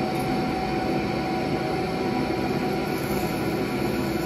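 Dry ice blasting machine and its compressed-air supply running: a steady loud hiss with a low hum.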